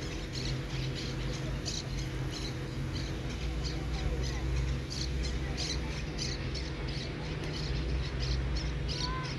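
Steady low rumble of match ambience with faint distant voices, dotted all through with many short, high chirps or squeaks at irregular intervals. A brief rising chirp comes near the end.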